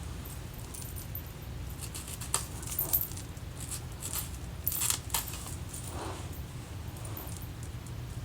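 Scattered light clicks and short rustles from handling small hair-styling tools and products while laying down the side of a lace wig, most of them clustered around the middle, over a steady low hum.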